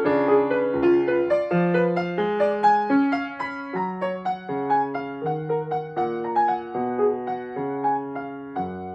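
Solo grand piano playing a classical piece in an even stream of notes, growing softer toward the end, where a low bass note comes in.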